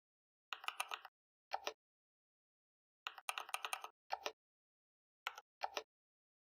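Computer keyboard keystrokes, typed in short quick runs of clicks with pauses between them.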